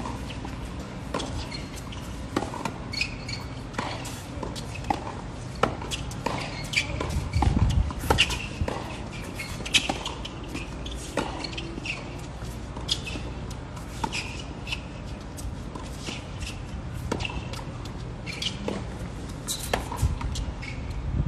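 Tennis rally on a hard court: sharp pops of racket strings striking the ball and the ball bouncing on the court, trading back and forth at an uneven pace. A low gust of wind on the microphone comes in about seven seconds in.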